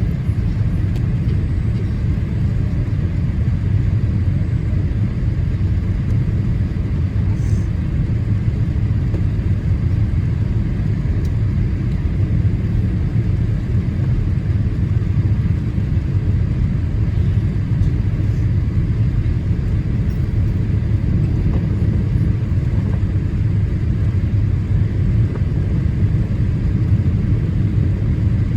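Steady low rumble of engine and airflow noise inside the cabin of a Boeing 787-8 Dreamliner on approach.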